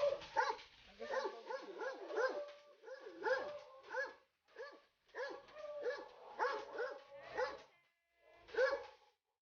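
Doberman dog whining and yelping in a rapid run of short, high-pitched cries, two or three a second, with a brief pause near the end before one more cry.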